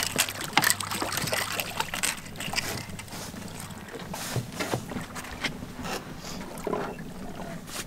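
A hooked blue catfish splashing irregularly as it thrashes at the surface beside the boat, with a faint low hum underneath that fades out about halfway through.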